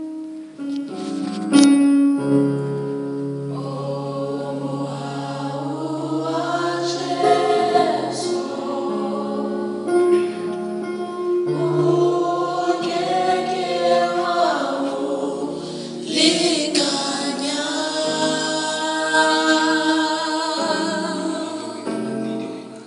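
Choir singing a gospel song in harmony, with long held chords.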